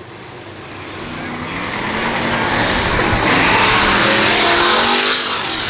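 Dirt-track stock car's engine revving and getting louder over several seconds as the car gets going again during a caution.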